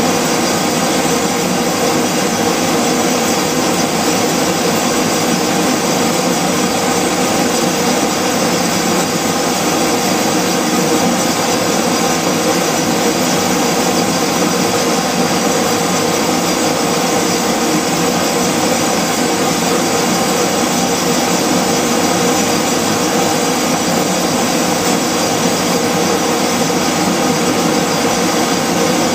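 Homemade blown propane forge burner running: a hair dryer blowing air into a pipe burner fed by a propane weed-torch, blower and flame together making a loud, steady, even rushing noise that doesn't change.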